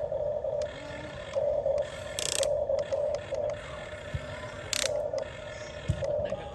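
Huina 1550 RC excavator's geared electric motors whining in short spurts, starting and stopping again and again, with a gear-like mechanical clatter and two brief hisses.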